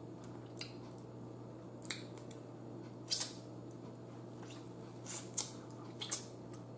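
Eating sounds close to the microphone: a handful of short, irregular clicks and crackles as meat is picked from boiled crab legs and eaten, with lip smacks, over a steady low hum.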